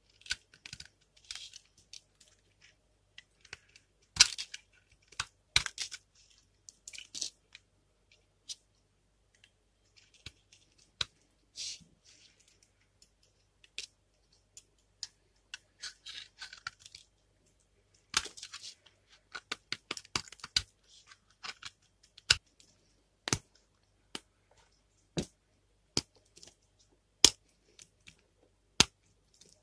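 Knife cutting and shaving a dry, brittle bar of soap: short crisp scrapes and crunches as flakes break away. In the second half come single sharp clicks about once a second as the hard soap snaps.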